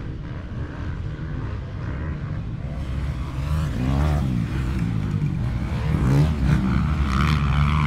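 Motocross dirt bike engine revving hard as the bike comes closer and climbs past, getting louder from about three seconds in, its pitch rising and falling with the throttle over a steady rumble of other bikes further off.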